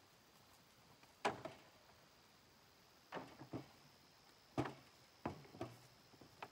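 About six faint, irregular knocks and clacks of bamboo drying poles being handled and stacked, each with a short ring. A faint steady high tone runs underneath.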